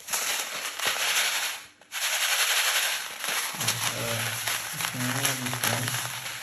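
Tiny sugar sprinkles rattling and hissing inside a clear plastic bag as it is shaken and squeezed, with the plastic crinkling. There is a brief pause about two seconds in.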